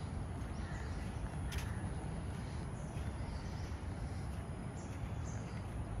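Birds chirping in short calls now and then over a steady low rumble, with one sharp click about a second and a half in.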